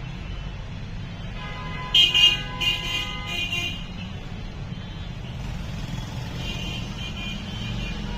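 Low, steady traffic rumble, with a vehicle horn honking three short times about two seconds in.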